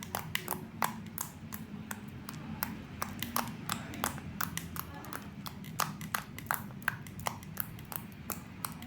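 Slime being squeezed and poked by hand, giving quick irregular clicks and pops, several a second, as trapped air bursts.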